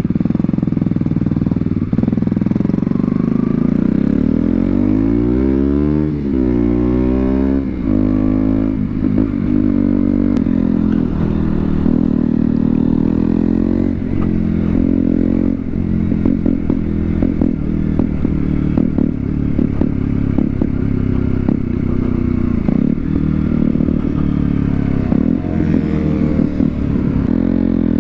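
KTM Duke 125's single-cylinder 125 cc four-stroke engine running while riding, its revs climbing and falling several times, with a sharp drop and climb in revs a few seconds in and again near the end. Short clattering knocks come through over the engine in the latter part.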